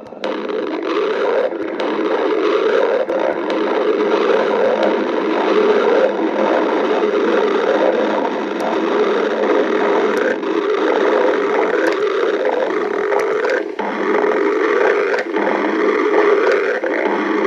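Loud, continuous stomach growling: a close-miked, churning gurgle and rumble that begins suddenly and goes on without a break, with small clicks scattered through it.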